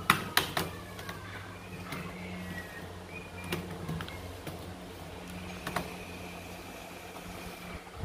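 Sharp plastic clicks and snaps from the Asus X502CA laptop's keyboard top case as it is pried up off its clips: a quick run of clicks about a second in, then a few single clicks. A steady low hum runs underneath.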